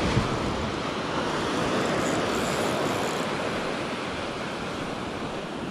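Surf washing onto the beach, with wind buffeting the microphone: a steady rushing noise.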